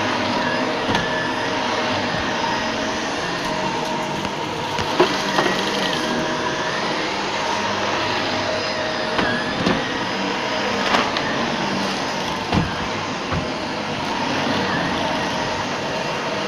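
Shark Rotator Professional Lift-Away upright vacuum cleaner running steadily, with a few short knocks as it is pushed around.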